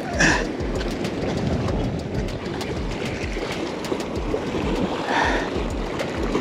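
Surf surging and washing against the rocks of a jetty, with wind rumbling on the microphone. The wash swells briefly just after the start and again about five seconds in.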